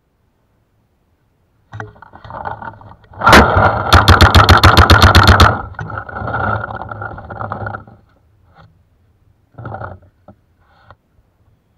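Paintball marker firing a rapid string of about twenty shots, some ten a second, for about two seconds.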